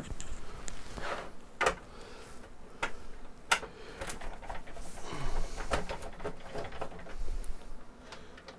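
A screwdriver working screws out of the plastic bottom case of a Tandy Color Computer 3, with sharp clicks and knocks of the tool and the case being handled, and some scraping about halfway through.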